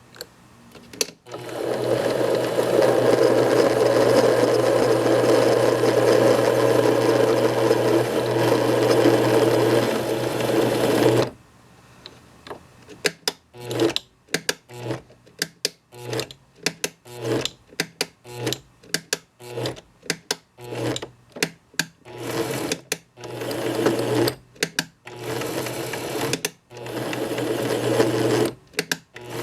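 Compact 7 benchtop lathe running steadily for about ten seconds while threading steel, then started and stopped in many short bursts, roughly one or two a second.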